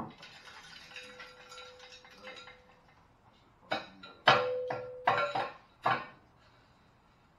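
Metal clinks, then four sharp knocks with a short ringing after each, from a gutted catalytic converter and exhaust pipe being knocked against a cinder block to shake out the broken catalyst.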